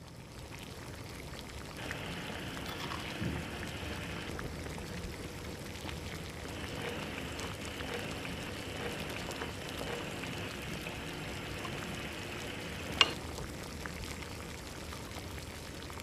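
Hot pot broth simmering: a steady bubbling, sizzling hiss, with one sharp click near the end.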